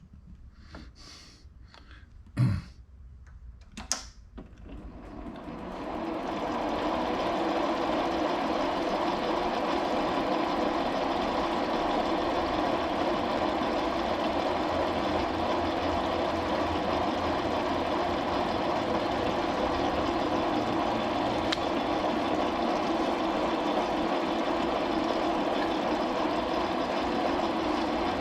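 Metal lathe starting up after two short knocks, its spindle and motor coming up to speed over a couple of seconds and then running steadily while turning a step on steel bar stock.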